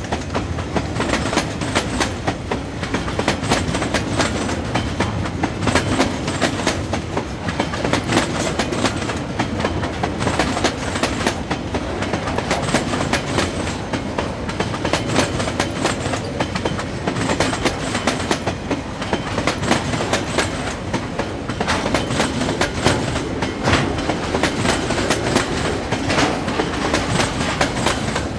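Train cars rolling steadily past, wheels clacking over the rail joints in a continuous irregular clatter over a low rumble.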